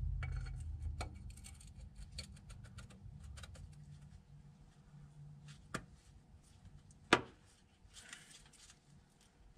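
Faint clicks and light taps as a rubber rear main seal is worked by hand over a steel seal installer, with a sharp knock about seven seconds in.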